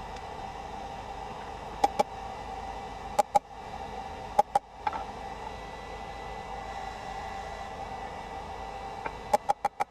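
Hammer blows on metal, struck in pairs and threes with a quick run of four near the end, while rebar is forged into tongs. Under them runs the steady rush of a running forge.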